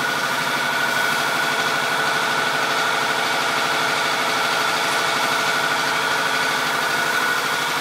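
Water bottling-line machinery running steadily in the plant hall: an even mechanical hum with a steady high whine over it.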